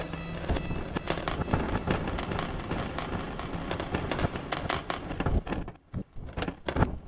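Phase Plant's granular engine playing the 'Door Wobble' foley sample, chopped into a dense, irregular stream of short clicky grains that crackle. The grains thin out to sparser clicks about six seconds in.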